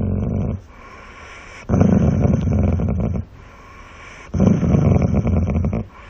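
Dog growling in three rough, low bursts, each lasting up to about a second and a half, with short pauses between.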